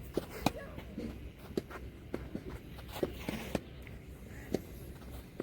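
Footsteps on a tennis court with irregular light knocks, about one or two a second, and a brief scuff near the middle.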